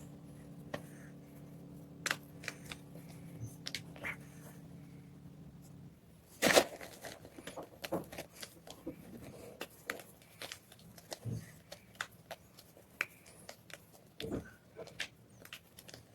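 White gym chalk being crunched: scattered crisp cracks and crunches, with one loud snap about six and a half seconds in. A low steady hum runs under the first six seconds and then stops.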